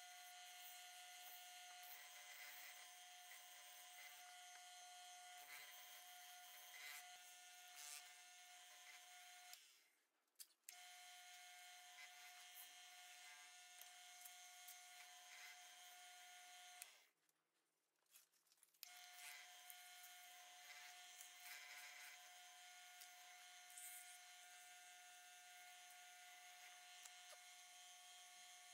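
Faint, steady whine of a Jet wood lathe's motor running with the workpiece spinning, dropping out twice for a second or two.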